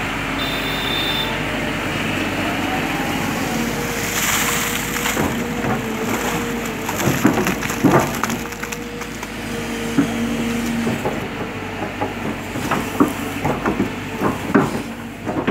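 Kobelco crawler excavator's diesel engine running steadily while the machine works. Sharp knocks and clanks come in a cluster about halfway through and again near the end.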